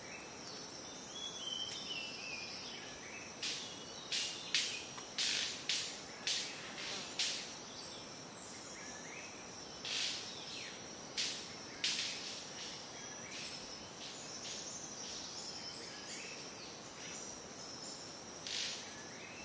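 Rainforest ambience: a steady high-pitched insect drone with a layer of insect chirring beneath it. Over it come loud, short, sharp calls repeated in quick succession, a run of about eight a few seconds in, a few more in the middle, and one near the end.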